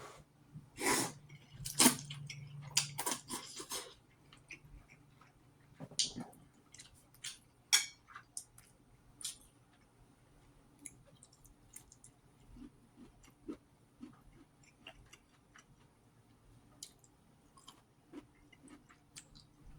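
Close-up eating sounds of a person chewing ramen noodles and broccoli: wet smacks and clicks, louder and busier in the first few seconds, then fainter scattered mouth clicks.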